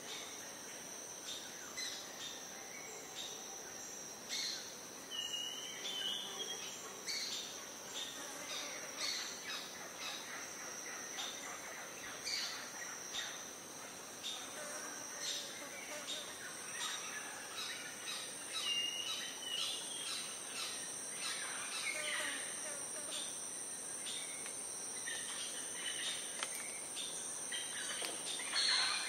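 Rainforest ambience: a steady high-pitched insect drone at two pitches, with many short bird chirps and calls scattered across it. The higher drone grows louder about two-thirds of the way through.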